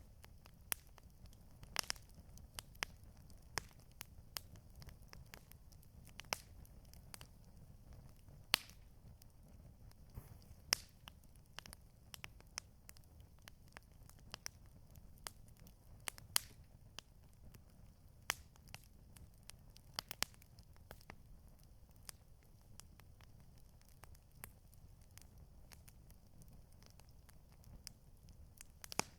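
Campfire burning, crackling with irregular sharp pops and snaps, some louder than others, over a steady low rumble.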